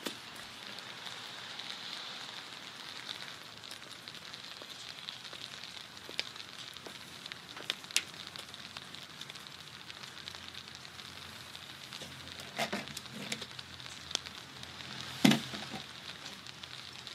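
Steady hiss of light rain on wet pavement, with scattered small drips and a few dull knocks near the end, the loudest about fifteen seconds in.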